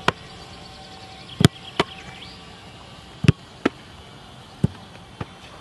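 Football being volleyed and caught by a goalkeeper in gloves: seven sharp thuds, the loudest from the kicks, some followed a fraction of a second later by the softer slap of the catch.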